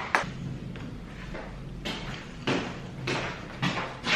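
A series of soft thumps and rustles, about six in four seconds, each dying away quickly, over a low steady hum.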